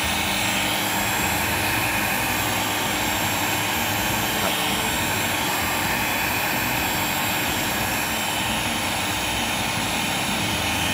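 A 2,000-watt heat gun blowing a steady stream of hot air onto a PVC waterstop joint, melting the plastic so the pieces fuse into one weld.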